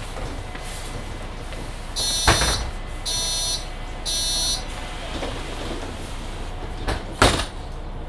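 Door warning buzzer of a Mercedes-Benz Citaro C2 hybrid city bus beeping three times, each beep about half a second, signalling that the doors are about to move. A knock comes during the first beep and a heavier thump about seven seconds in as the doors shut, over the bus's steady low hum.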